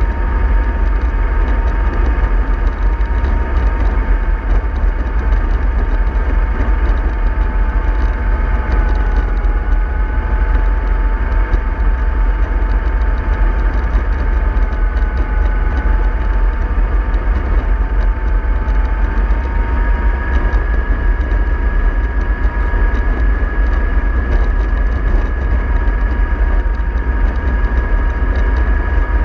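Remote-control model bus running, with a steady low rumble and a constant high whine that sags slightly in pitch around the middle and comes back up.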